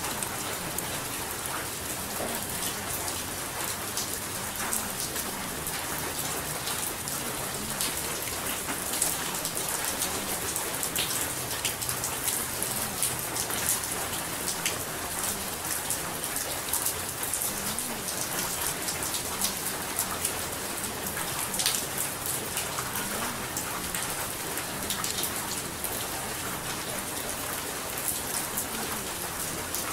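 Steady rain falling, an even hiss with the close patter of many individual drops.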